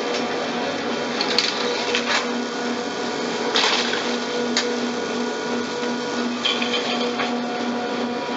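Drive machinery of an old short-bar surface ski lift running: a steady low hum that pulses at an even rate, with scattered clicks and clatters from the moving parts.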